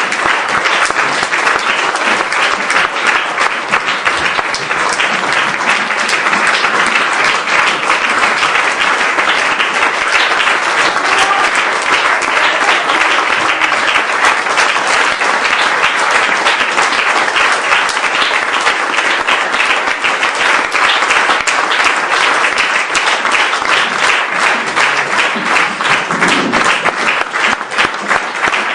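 Audience applauding steadily after a performance. In the second half the clapping grows more separate and individual claps stand out.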